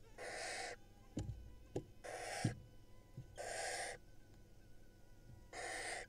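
Barn owl nestlings giving their rasping, hissing food-begging "snore" calls: four separate rasps of about half a second each, spaced roughly a second and a half apart. A few dull bumps from the birds moving in the nest box fall between the first two rasps.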